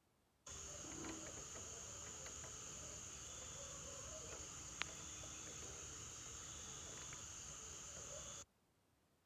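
Crickets chirping steadily in a high, even drone over a low background hum, with one sharp click about halfway through. The sound cuts in and out suddenly, like an edit in the audio.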